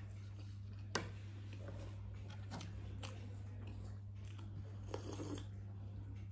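Someone eating: quiet crunching bites and chewing, with a few sharp clicks and a short cluster of crunches about five seconds in, over a steady low hum.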